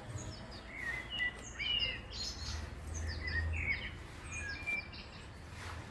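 Birds chirping: many short, high chirps and quick whistled notes, some rising and some falling, over a low background rumble.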